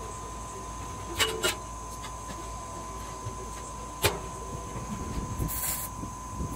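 A few sharp metallic clicks, two close together and one more a few seconds later, from the steel firebox door hardware of a vertical smoker being worked by hand. Under them a steady shop hum with a thin steady tone, and a short hiss near the end.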